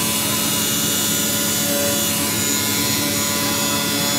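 Cordless 36-volt battery pressure washer running steadily: the pump motor's constant hum together with the hiss of its water spray.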